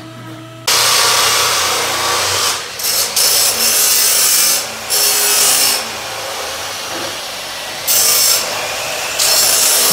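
A power tool working on steel exhaust piping: a loud, harsh noise that starts suddenly about a second in and comes in bursts of a second or two with short breaks, easing off for a couple of seconds past the middle.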